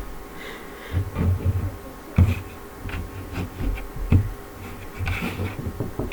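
Puzzle pieces being handled and set down on a surface: a handful of separate knocks and clicks, with soft rustling between them.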